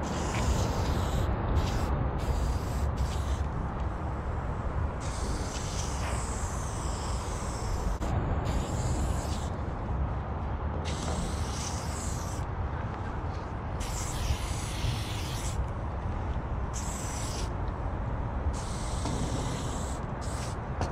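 Aerosol spray-paint can spraying in about ten hissing bursts of one to three seconds, with short pauses between. A steady low rumble runs underneath.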